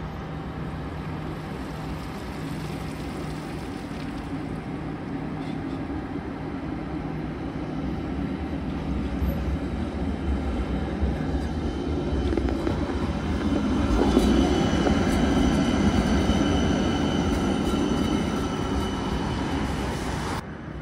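Transtech Artic low-floor electric tram approaching and passing on street track: a rumble of steel wheels on rails with a high electric whine, growing louder to a peak about two-thirds of the way through. The sound drops off abruptly just before the end.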